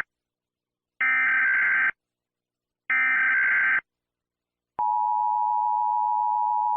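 Emergency Alert System SAME data bursts: two warbling digital tone bursts of about a second each, a second apart, then a steady EAS attention tone that begins about five seconds in.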